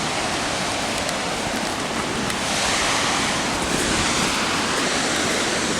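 Waterfall's falling water: a steady, dense rush of water noise that grows a little louder about halfway through.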